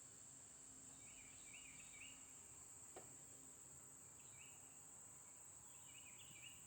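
Faint, steady high-pitched drone of insects, with short bird chirps in a few small bunches and a single sharp click about three seconds in.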